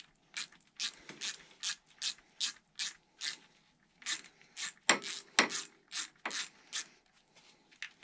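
Hand ratchet fitted with a 5/32 Allen bit, clicking as it is worked back and forth on a bolt: about two to three clicks a second, a short pause a little before halfway, then fainter clicks near the end.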